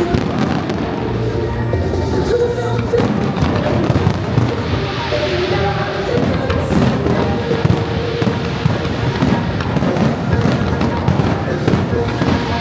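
Fireworks display going off continuously: many irregular bangs and crackles, with the show's synchronized music playing alongside.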